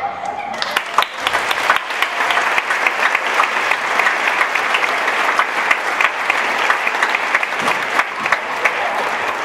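Theatre audience applauding steadily, just as the last sung note of the number trails off in the first half-second.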